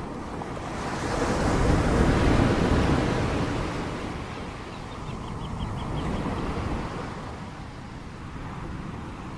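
Ocean surf: waves breaking and washing up the beach, swelling loudest about a second in and again more weakly around six seconds.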